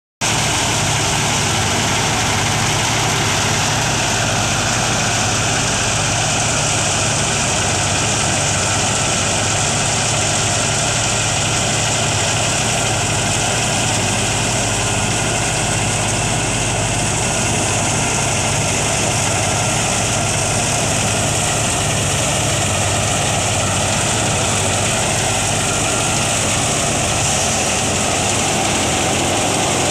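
Tractor engine and tractor-driven wheat thresher running steadily under load, a continuous low engine drone under a dense, even mechanical rush.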